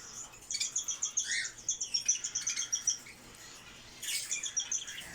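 Budgerigars chirping in fast runs of short, high chirps, with a lower swooping call about a second and a half in; the chatter pauses about three seconds in and picks up again a second later.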